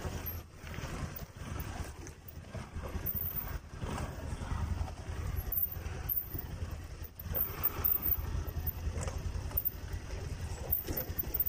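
Motorcycle engine running at low revs as the bike crawls over a rocky off-road trail, with the frame and fittings knocking and rattling over the bumps.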